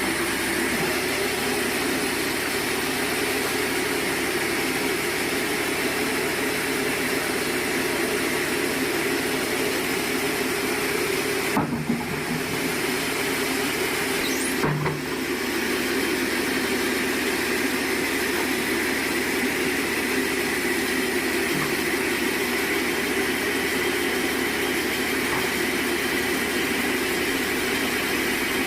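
Sawmill machinery running steadily with a dense mechanical rush and hum. The sound dips briefly twice, about twelve and fifteen seconds in.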